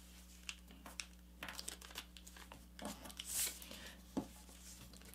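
A sheet of paper being folded down and creased by hand: faint rustling and crinkling with a few small ticks, the loudest rustle about three and a half seconds in.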